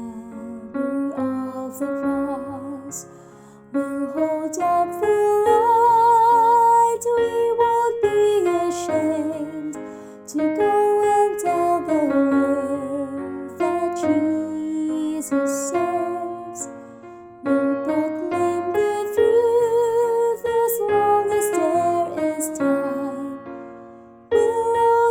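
A woman singing the mezzo-soprano line of a hymn with vibrato, over piano or electric keyboard accompaniment, in phrases that each end with a short fade about every seven seconds.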